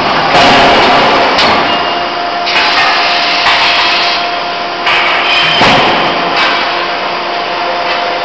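Running noise of a CNC hydraulic die forging hammer at work: a steady hiss with a constant hum tone, broken by a few sharp metallic knocks. Stretches of brighter hissing come in bursts as die-lubricant spray is blown into the die.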